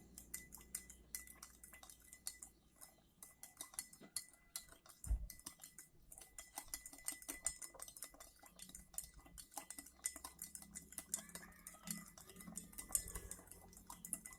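A spoon stirring liquid in a cup, clinking quickly and continuously against its sides, with one dull thump about five seconds in.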